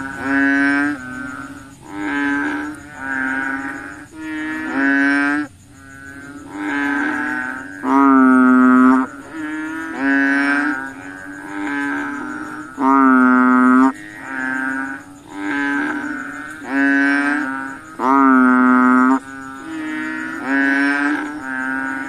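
Frogs calling: a steady series of low, droning calls, each about a second long, one after another with short gaps. A louder call stands out about every five seconds among softer ones.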